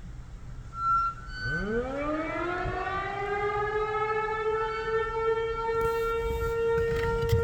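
Outdoor tornado warning siren winding up: starting about a second and a half in, its pitch rises quickly from a low growl and settles into a steady wail. A short high chirp comes just before it starts.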